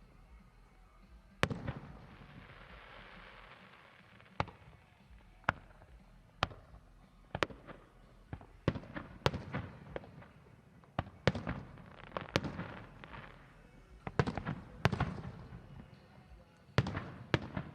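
Aerial fireworks bursting: a string of about fifteen sharp bangs at uneven intervals, a few followed by a brief crackling hiss.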